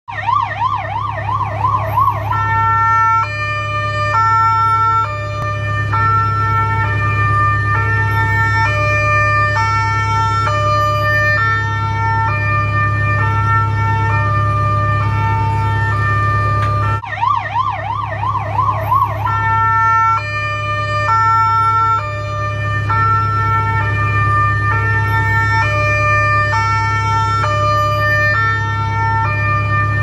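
Kuwaiti ambulance electronic siren. It opens with a fast rising-and-falling yelp for about two seconds, then switches to a stepped pattern that jumps between a few fixed pitches, all over a steady low hum. About halfway through, the sequence starts again with the yelp.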